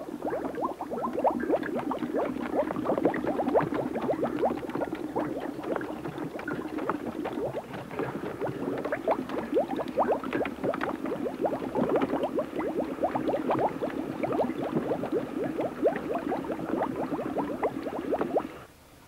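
Bubbling sound effect of bubble bath frothing up: a dense, continuous run of quick watery blips and pops. It stops abruptly near the end.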